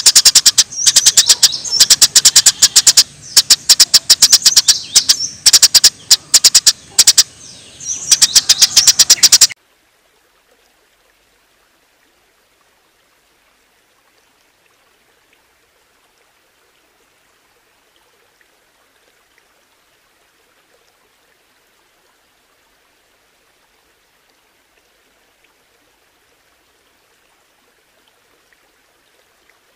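Small songbird singing in rapid, loud, high-pitched rattling bursts of 'shots', as in a birdsong training recording for caged birds; about nine seconds in it cuts off suddenly to near silence, the pause between rounds of the training track.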